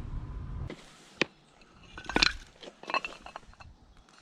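A low rumble that stops about a second in, then a sharp click and a short run of light clinks and clicks, like small hard objects knocking together.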